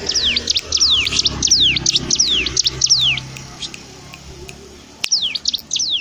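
Caged cigun songbird singing in full voice: a fast run of sharp, downward-sliding whistles, about three a second, that stops after about three seconds and starts again for a few notes near the end.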